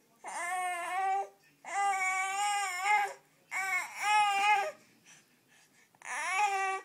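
Baby making a series of drawn-out, whiny, cry-like calls, each about a second long and rising then falling in pitch, with short breaks between them and a longer pause before the last.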